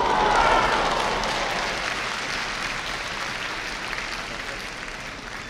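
Arena crowd applauding a kendo point just awarded, the deciding dō strike. The clapping is loudest in the first second and slowly dies away.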